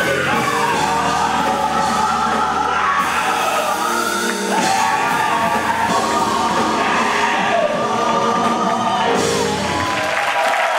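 Live gospel music: a soloist and backing voices singing gliding, sustained lines over a band in a large hall, the music stopping near the end as the song finishes.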